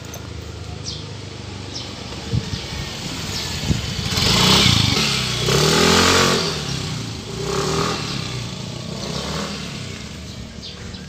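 Yamaha Mio Soul i 125 scooter's single-cylinder four-stroke engine accelerating up the street and passing close by. It is loudest a few seconds in, its pitch drops as it goes past, and it then fades away.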